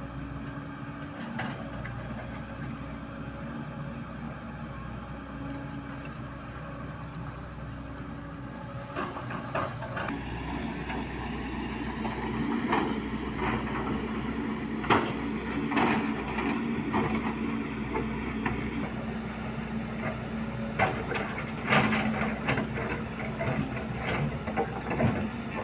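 Volvo tracked excavator's diesel engine running steadily under hydraulic load. From about nine seconds in, its steel bucket clanks and scrapes repeatedly against rocks and gravel as it digs.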